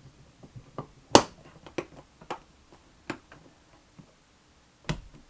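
Sharp knocks and clicks of hard objects being picked up and set down while searching for a mislaid screwdriver. There are about five distinct knocks, the loudest about a second in and another near the end.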